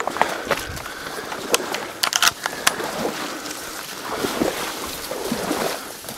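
A person moving through tall dry reeds: stems brushing and rustling against clothing and gear, with scattered clicks and a quick cluster of sharp clicks about two seconds in.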